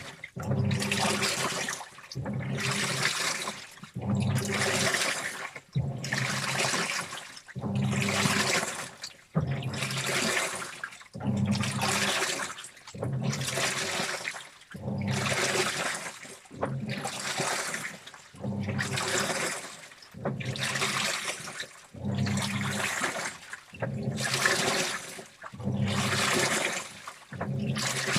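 Washing machine in its wash cycle, water and clothes sloshing in the turning drum over a low motor hum. The sound comes in regular surges about every second and a half to two seconds, with short lulls between as the drum pauses or reverses.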